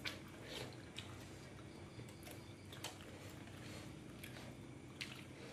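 Quiet eating by hand: chewing and a few short clicks and rustles of fingers handling food in its wrapping, over a low steady hum.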